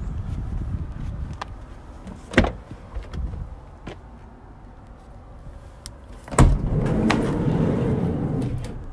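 A door latch clicks sharply about two and a half seconds in. Later, the sliding side door of a VW Transporter T5 van unlatches with a loud clunk and rolls open along its track for about two seconds.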